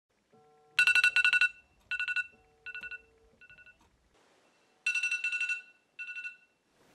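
A phone's electronic beeping tone: short bursts of rapid beeps at one fixed pitch. A loud burst about a second in is followed by three fainter ones, and it comes back loud about five seconds in.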